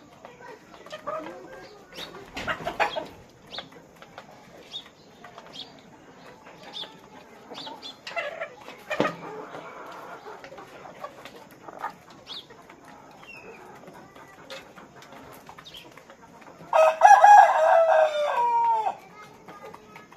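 Chickens clucking with short scattered calls. Near the end a rooster crows once, loud and drawn out, with a falling tail.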